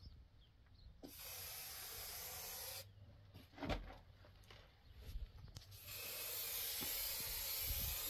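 Aerosol spray-paint can hissing in two long bursts, starting and stopping sharply, with a few knocks in the pause between them, as lettering is sprayed onto a wall.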